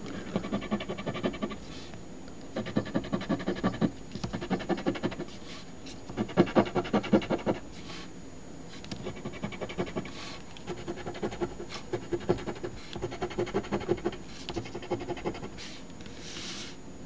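A coin scratching the latex coating off squares of an instant lottery ticket in quick back-and-forth strokes. It comes in about seven bursts of a second or two each, with short pauses between them, and a brief hiss near the end.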